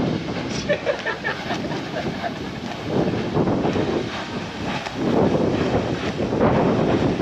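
Flame from a hand-held burner wand fed from a pressurised tank, burning along the asphalt as a rushing noise that rises and falls, mixed with wind buffeting the microphone.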